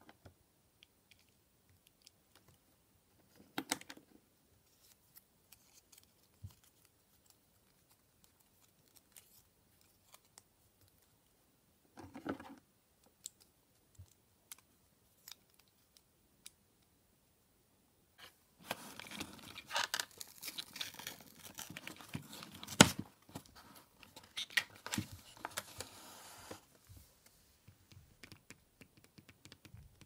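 Small clicks and snaps of hard plastic toy pieces being fitted together, then a long stretch of tearing and crackling as a chocolate egg is pulled out of its cardboard pack, with one sharp knock partway through.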